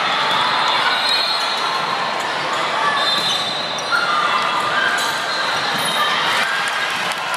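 Indoor volleyball rally on a hardwood court: sneakers squeaking on the floor and the ball being struck, with one sharp hit about four seconds in. Players' and spectators' voices echo around the large gym.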